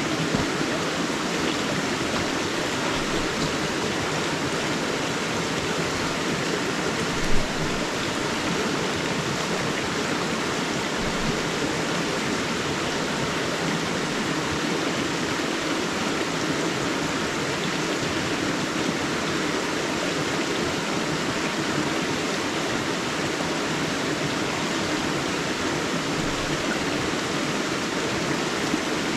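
River water flowing steadily, an even rushing noise, with one brief louder sound about seven seconds in.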